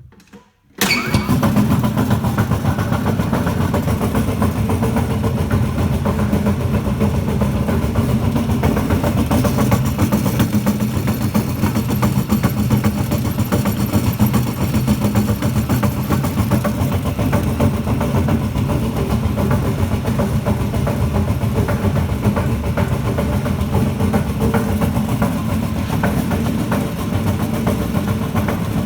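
Wills compressor starting up abruptly about a second in, then running steadily with a rapid pulsing beat.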